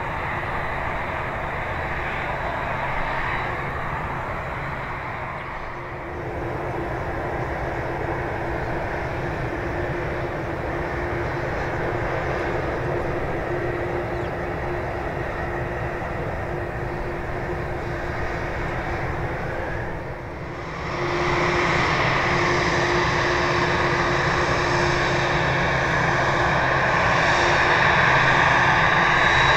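Boeing 787-8's GEnx-1B64 turbofan engines running at low power before takeoff: a steady jet rumble with a held whine. It dips briefly about six seconds in and again about twenty seconds in, after which it is louder and brighter.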